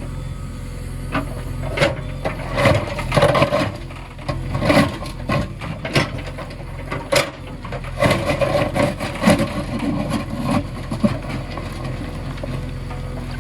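A low, steady engine-like hum with irregular knocks and clatters over it, at times several a second.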